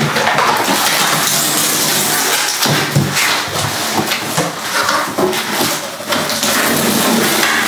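A large cardboard box being opened by hand: packing tape pulled off and stiff cardboard flaps scraped and folded back, with a knock about three seconds in.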